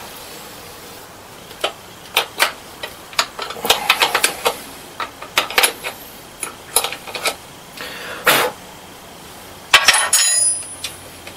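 Metal hardware clinking and clicking on the terminals of a bank of 6-volt batteries as cables are fastened, with a louder sharp crack about ten seconds in.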